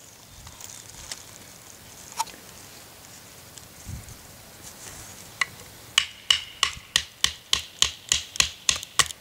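A tool knocking sharply and repeatedly on the top of an upright piece of dead maple to split it: about a dozen quick, even strikes, a little over three a second, starting about six seconds in. Before them, only faint handling knocks of the wood.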